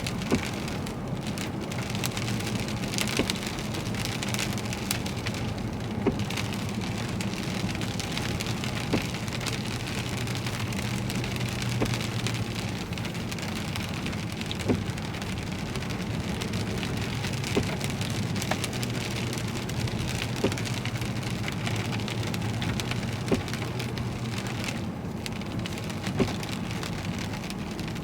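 Heavy rain falling on a car, with steady low road and engine noise beneath it and a sharp tick about every three seconds.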